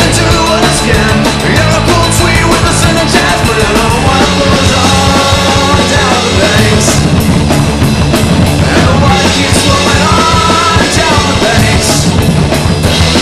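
Loud punk rock song played by a trio on electric guitar, bass guitar and drum kit.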